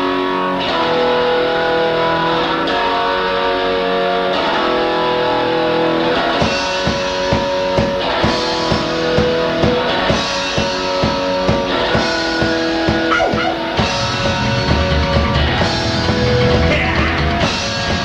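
Rock band playing: a distorted electric guitar rings out at first, drums come in with a steady beat about six seconds in, and a heavier low end joins near the end.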